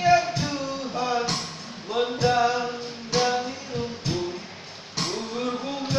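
A small group singing a song together in long held notes, over keyboard accompaniment with a percussive beat about once a second.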